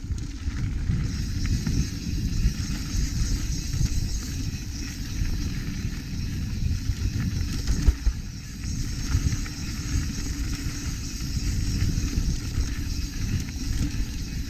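Mountain bike ridden along a dirt trail: constant wind noise on a bike-mounted action camera's microphone, with tyre noise and the bike's rattling and small knocks, and one sharper knock about eight seconds in.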